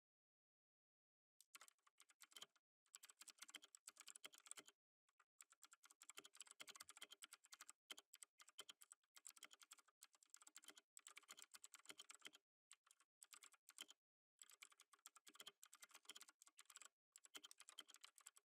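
Typing on a computer keyboard: quick runs of key clicks in bursts of a second or two with short pauses between them, soft and low in level.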